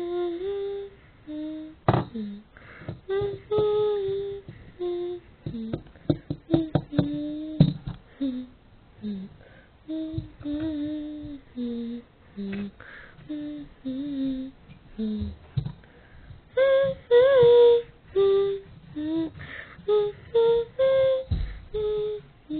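A child's voice singing or humming wordlessly in short held notes that slide up and down, with scattered sharp taps and knocks, the loudest about two seconds in and a cluster around six to eight seconds.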